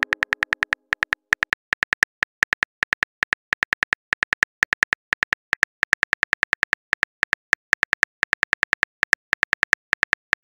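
Keyboard typing clicks from a texting app's sound effect, a quick run of several clicks a second with short gaps between words.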